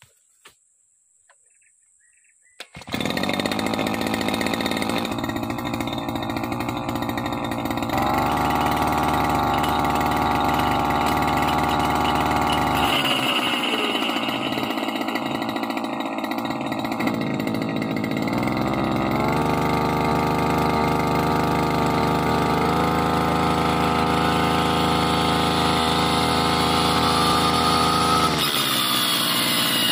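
Near silence at first, then a backpack brush cutter's engine starts running loudly, spinning a circular saw blade in the air. It revs up, drops back, and revs up again for a long stretch before easing near the end.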